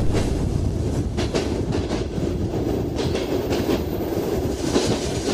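A train running along the track: a steady rumble with scattered clicks of the wheels over the rails.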